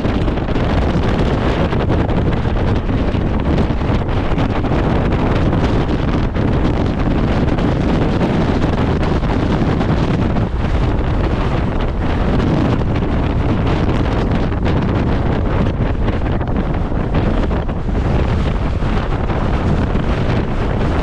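Gale-force wind of over 35 m/s buffeting the microphone: a loud, steady rumble with no letup.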